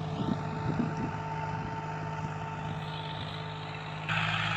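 John Deere 5039D tractor's three-cylinder diesel running steadily under load while pulling a disc harrow, with a high whine that rises in pitch over the first three seconds. The sound gets suddenly louder about four seconds in.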